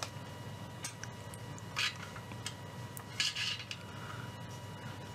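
Small metallic clicks and a brief scrape as a metal tool nudges the dial pointer of a Philips 206A valve radio along its dial glass. Under them is a faint steady high tone from the radio receiving the signal generator's test signal.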